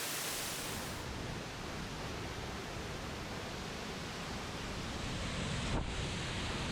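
Waterfall rushing: a steady noise of falling water.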